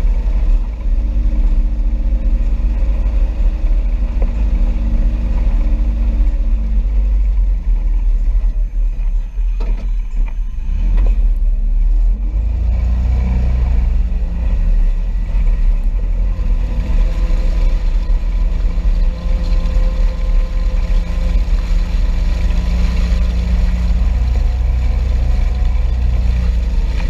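John Deere 825M Gator utility vehicle running and being driven, with a heavy low rumble and an engine note that changes as it goes, dropping lower around halfway in.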